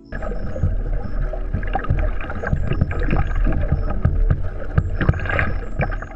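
Water splashing and slapping against a kite-towed kayak's hull, with wind rumbling on the microphone and many short irregular knocks and splashes.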